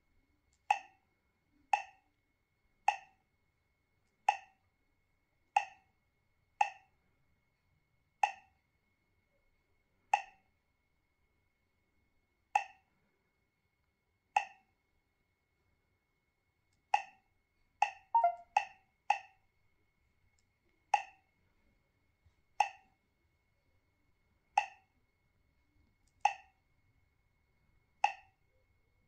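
Touchscreen GPS navigator's key-press sound: a short, identical electronic pop from its small speaker for each tap on the screen. They come about one every second or two, with a quick run of four a little past the middle.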